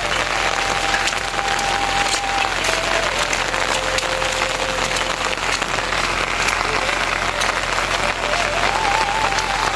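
Heavy rain falling steadily: a dense hiss with many small drop ticks. A faint thin held call sounds over the rain at times.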